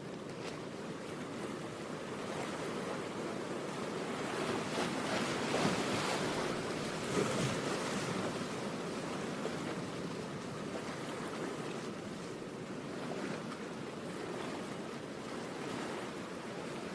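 Steady rushing noise that swells slowly to a peak about six or seven seconds in, then eases back.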